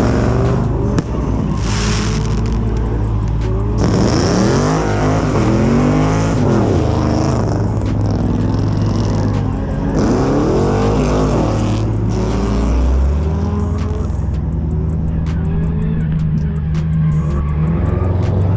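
Car engines revving hard over a steady low engine drone, the pitch rising and falling in a couple of long sweeps, with tyres squealing; music plays underneath.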